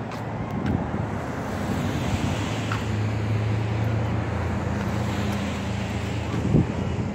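Wind buffeting the microphone over a steady outdoor rumble, with a motor's low steady hum in the middle of the stretch.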